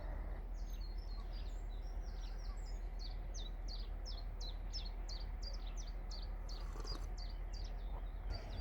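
A songbird singing a long run of quick, high chirps, about three or four a second, stopping near the end, over a steady low outdoor rumble.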